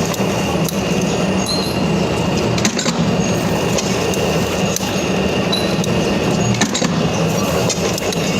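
Heavy machine's engine running steadily with a low hum, with scattered clicks and knocks throughout.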